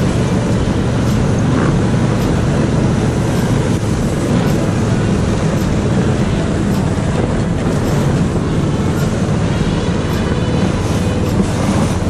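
Motodog (small tracked snow tow) engine running steadily under load, pulling a sled over packed snow.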